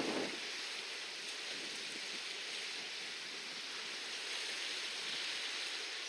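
Steady outdoor rushing hiss of sea and wind, with a short muffled bump right at the start.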